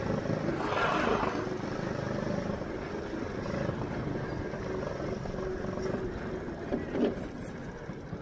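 Go-kart engine running steadily while the kart is driven. There is a brief louder rush of noise about a second in and a short knock just after seven seconds.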